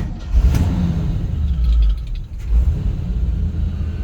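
1965 Chevy C10 pickup's engine running with a heavy, steady low rumble that starts suddenly.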